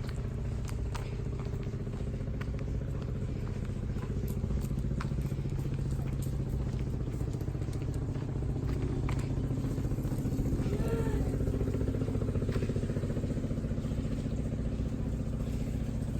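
Steady low engine hum, like a vehicle running, with a few faint clicks and, about two-thirds in, a faint short rising-and-falling whine.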